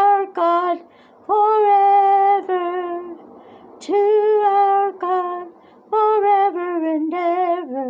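A woman singing a slow devotional chant of praise in long held notes, phrase by phrase with short breaks between, each phrase ending on lower steps in pitch.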